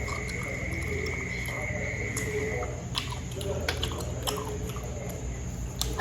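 A person chewing and biting food with the mouth close to the microphone, with scattered small wet clicks, over a steady low hum.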